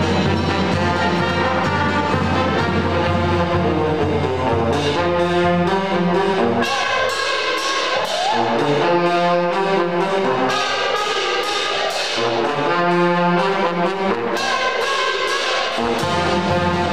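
A brass band playing live: a full, heavy ensemble with a strong bass line at first, then lighter repeated brass phrases over a steady beat of sharp strikes. The low bass comes back in near the end.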